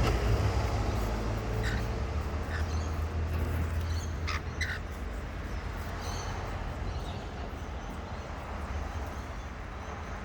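Wild birds giving a few short, harsh calls over a steady low rumble.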